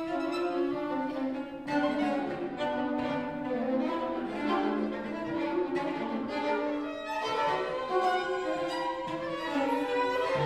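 String quartet of violins and cello playing contemporary chamber music live, with long bowed notes overlapping and the harmony shifting every few seconds.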